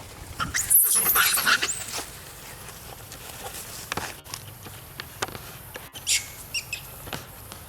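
Monkeys calling: a loud burst of high-pitched screeching in the first two seconds, then a few short high squeaks near the end, with scattered light clicks between.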